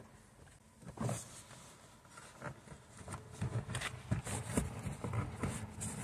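Small plastic clicks and taps as a blanking cap is worked out of a car door trim panel. The clicks come sparsely at first, then several a second in the second half.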